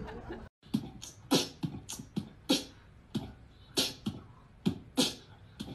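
Beatboxing in a steady beat: vocal kick-drum thumps and hissing snare sounds, about two hits a second, starting just after a brief dropout near the start.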